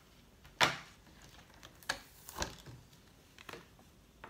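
A few sharp clicks and knocks of tools and card being handled on a craft table: a loud one about half a second in, then three softer ones.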